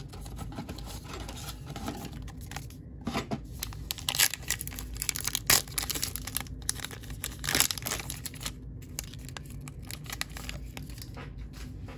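Foil wrapper of a 2022 Topps Heritage baseball card pack being torn open and crinkled by hand, in short sharp crackles that are loudest a few seconds in and ease off near the end.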